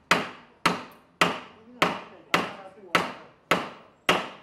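A hammer striking wood in a steady rhythm of about two blows a second, each blow sharp with a short ringing tail.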